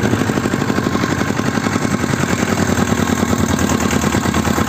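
Homemade tractor's Lifan 6.5 hp single-cylinder four-stroke engine running steadily with an even, fast chugging as the tractor drives along, heard from the driver's seat.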